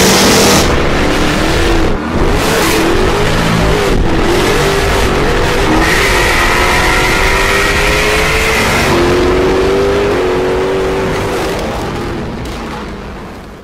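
Jaguar F-Type R coupe's supercharged 5.0-litre V8 accelerating hard, its engine note climbing and dropping back as it works through the gears, with a short break about two seconds in. The sound fades out near the end.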